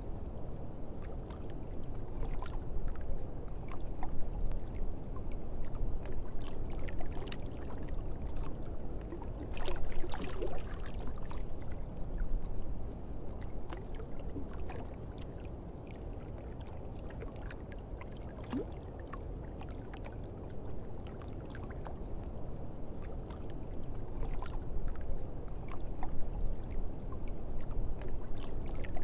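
A steady low rumbling wash of water-like noise with scattered crackles and clicks throughout.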